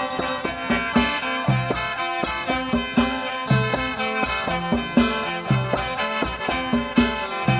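Northeast Thai mor lam band playing an instrumental passage, sustained melody over a steady drum beat with ticking percussion.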